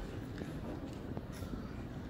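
Outdoor ambience of people in a public courtyard: faint, indistinct voices over a steady low rumble.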